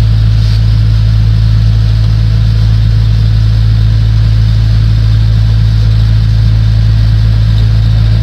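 Loud, steady low-pitched hum that does not change, like a running generator or electrical mains hum.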